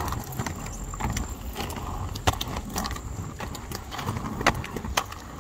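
Roller skate wheels rolling over a concrete sidewalk: a steady rumble with several sharp clicks.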